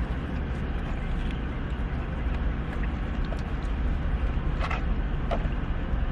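Steady low rumble of background noise, with a couple of faint short clicks a little after the middle.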